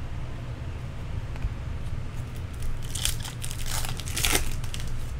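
Foil trading-card pack wrapper crinkling in the hands, in a few quick crisp clusters from about two and a half to four and a half seconds in, over a steady low room hum.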